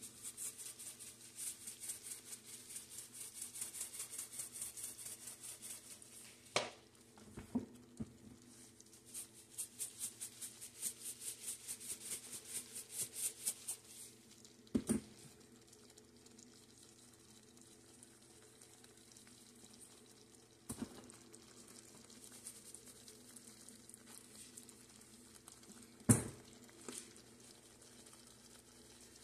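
Seasoning shakers shaken over a skillet of gravy in two long runs of quick, rhythmic strokes, with several sharp knocks as the bottles are handled and set down, the loudest near the end. A steady low hum runs underneath.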